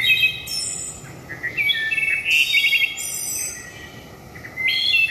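Small birds chirping and singing: a series of short high whistled calls, with a quick trill of repeated notes about halfway through, over a steady outdoor background hiss.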